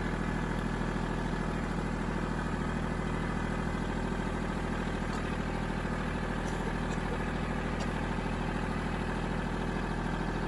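Kubota L2501 tractor's three-cylinder diesel engine running steadily, with a few faint light ticks over it.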